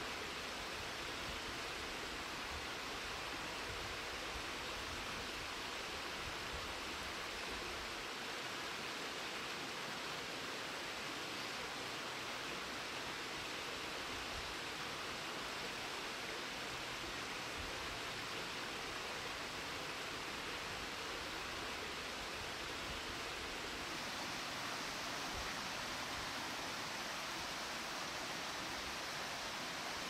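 Small rocky mountain stream flowing over stones and little cascades, a steady rush of water that barely changes.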